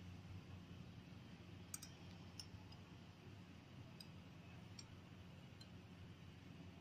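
Near silence over a low room hum, broken by a handful of faint, light clicks: a small spoon touching glassware as alginate gel beads are spooned out of the solution.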